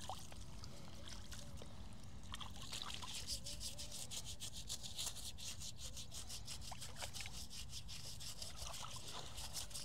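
Faint splashing and rubbing of hands scrubbing a foot in shallow water, a quick run of short strokes from a couple of seconds in until near the end.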